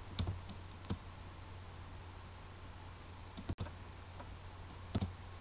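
About five separate clicks over a faint steady low hum, with the sound cutting out for an instant about three and a half seconds in.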